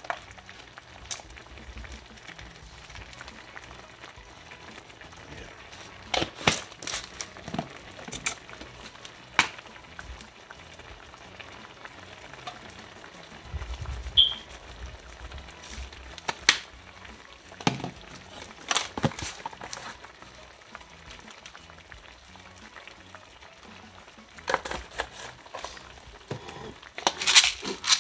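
Plastic spice shakers and their lids being handled and shaken over a pan: scattered sharp clicks and taps in small clusters, busiest near the end.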